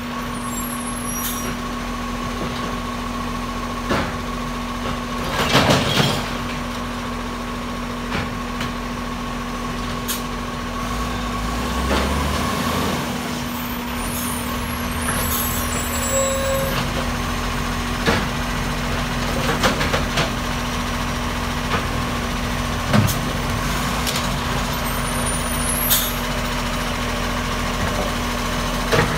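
Side-loader garbage truck's diesel engine running steadily with a constant high whine over it. A loud burst of air-brake hiss comes about six seconds in, and short clunks and knocks are scattered through.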